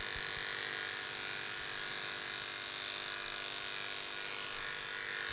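Electric dog grooming clippers with a 5F blade running with a steady buzz.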